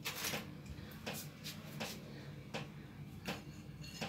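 Cumin and nigella seeds crackling in a little hot oil in a pan: faint, irregular pops over a low steady hum, the tempering stage before the ground spices go in.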